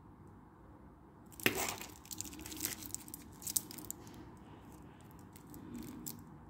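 Clear plastic protective film on a metal wristwatch crinkling and crackling as the wrapped watch is turned over in the hand. It starts about a second and a half in with the loudest crackle, then comes in irregular crackles and sharp clicks until near the end.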